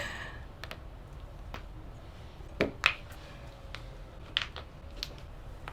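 Scattered short, sharp cracks of a person popping her own joints by hand, with two louder pops a little before the middle.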